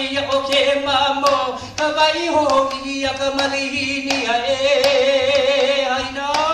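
Hawaiian hula chant: a voice holding long, slowly wavering notes, with sharp strikes on an ipu gourd drum keeping time about two a second.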